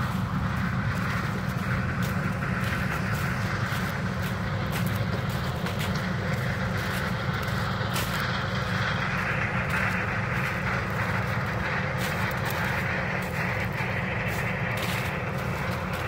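Steady low engine drone of farm machinery running without a break, under a rushing hiss and scattered light crackles.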